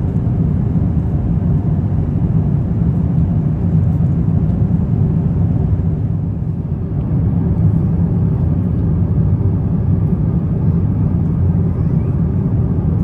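Steady low rumble of airflow and engine noise inside the passenger cabin of an Airbus A350-900 in flight, dipping slightly about halfway through.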